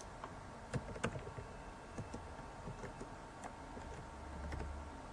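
Computer keyboard typing: a few separate keystrokes, spaced irregularly about a second apart.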